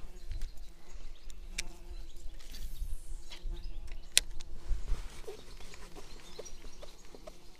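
Wind buffeting the microphone with a low rumble, broken by a few sharp clicks, the loudest about four seconds in.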